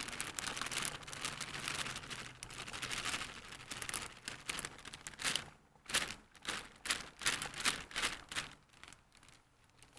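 A plastic zip-top bag crinkling and rustling as it is handled. It is a dense, continuous crackle for about the first five seconds, then breaks into separate sharp crackles.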